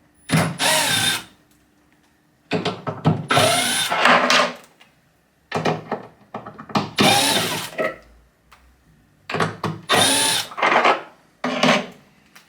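Cordless drill/driver backing out the screws of old cabinet hinge backplates, running in about five short bursts with its motor pitch rising and falling.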